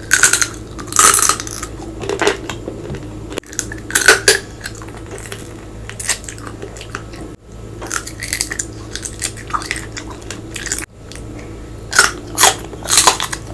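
Close-miked eating: sharp, irregular crunches and bites with chewing between them.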